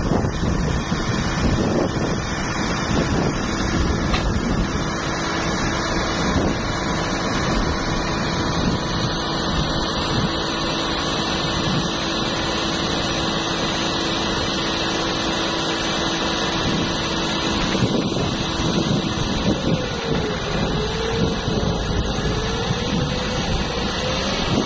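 Massey Ferguson tractor's diesel engine running steadily while working the hydraulic tipper that raises a trolley loaded with sand. A steady hum gives way to a wavering whine about twenty seconds in.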